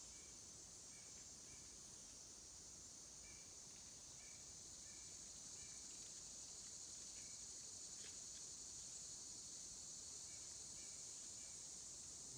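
Faint, steady high-pitched drone of insects, with short chirps repeating about once a second.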